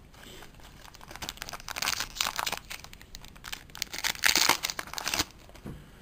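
Trading card booster pack wrapper being crinkled and torn open, a dense run of crackling and rustling for about five seconds, loudest near the end before it stops.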